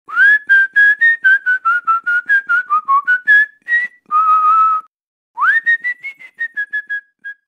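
A person whistling a quick run of short notes that dip and climb in pitch, then one longer held note. After a short break comes a rising swoop and another run of notes that grow fainter near the end.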